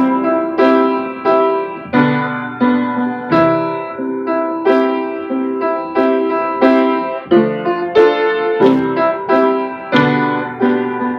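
Piano-sound keyboard playing a slow accompaniment of repeated chords, one struck about every two-thirds of a second, each ringing and fading before the next.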